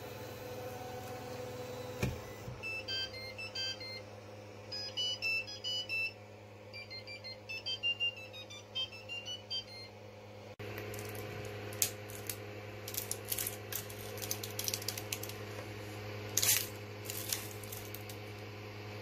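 Creality CR-10 3D printer humming steadily with its cooling fans. A quick run of short beeping notes jumps between pitches in the middle. Near the end come scattered scraping clicks as the finished print is pried off the taped bed.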